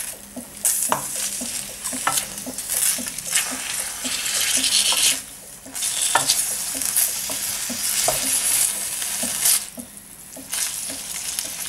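Green beans sizzling in olive oil in a stainless steel pan while a wooden spoon stirs and tosses them, with small knocks and scrapes of the spoon against the pan. The sizzle swells and dips with the stirring, falling away briefly twice.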